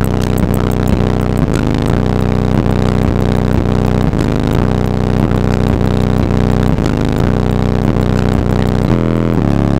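Bass-heavy electronic music played loud through a car audio system's two Phoenix Gold Elite 12-inch subwoofers. A repeating low bass pattern, switching to a new pattern near the end.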